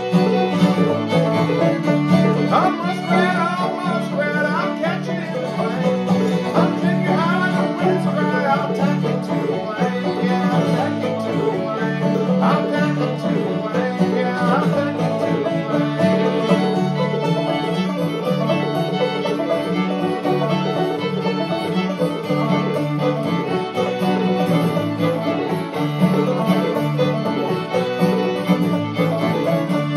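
Fiddle, banjo and acoustic guitar playing together in a steady, unbroken string-band tune, with the fiddle's sliding notes over the banjo's picking and the guitar's strummed chords.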